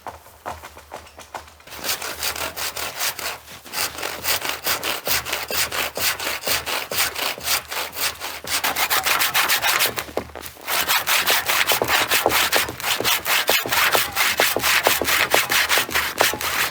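Hand saw cutting through a log in quick back-and-forth strokes, with a short pause about ten seconds in before the sawing resumes.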